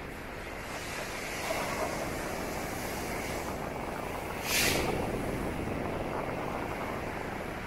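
Storm surf on a beach: heavy waves breaking and foam washing up the shore in strong wind, a steady rushing noise that swells after the first second, with a short, louder burst about halfway through.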